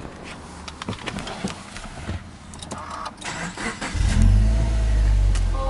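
A few light clicks and knocks inside the car, then about four seconds in the Subaru Legacy B4 2.5GT's EJ25 turbocharged flat-four cranks, fires and settles into a loud idle, heard from inside the cabin.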